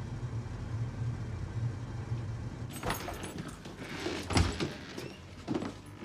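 Low, steady car rumble heard from inside the cabin. About three seconds in it gives way to clatter and knocks, with one heavy thump.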